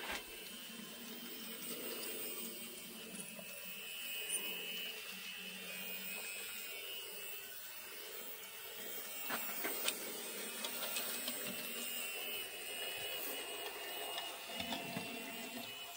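Small electric motor of a Tillig BR 23.10 TT-scale model steam locomotive running along the track, giving a steady, slightly wavering whine, with a couple of faint clicks from the wheels on the rails around the middle.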